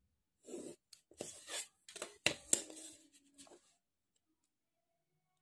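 Pencil scratching on drawing paper along a plastic set square in several short strokes, with small taps and scrapes as the drafting tools are handled. It lasts about three seconds, then stops.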